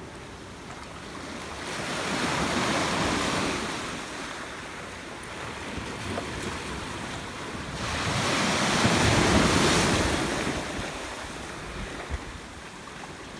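Sea waves washing onto the shore: two surges about six seconds apart, the second one louder, each swelling and then falling back.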